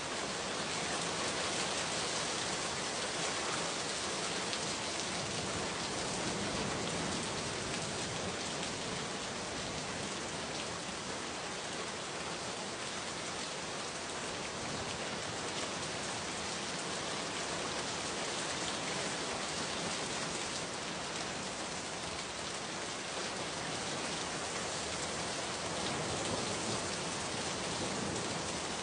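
Steady rain falling on a surface, a dense, even hiss of drops.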